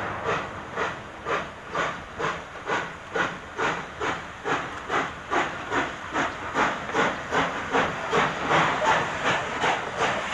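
PKP class Ol49 two-cylinder steam locomotive working a train past at close range, its exhaust chuffing in regular beats that quicken from about two to nearly three a second as it gathers speed. Steam hisses from the open cylinder drain cocks under the beats.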